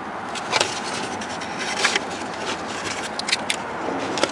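Plastic clicks and scraping from handling a car's lower dashboard trim panel and unplugging the wiring connector from its light switch: about five sharp clicks spread over a few seconds, over a steady noise.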